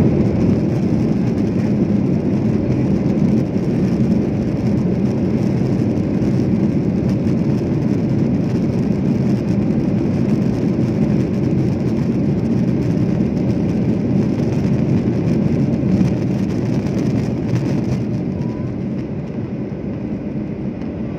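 Cabin noise of a Boeing 737-800 rolling out on the runway after touchdown: a steady, deep rush of engine, airflow and wheel noise from its CFM56 engines, easing off a little near the end as the aircraft slows.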